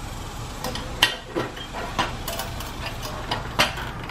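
Stock steel exhaust of a Kawasaki Ninja 650 being wiggled free of its header and chassis mount by hand: scattered metal clinks and knocks, the sharpest about a second in and again about three and a half seconds in.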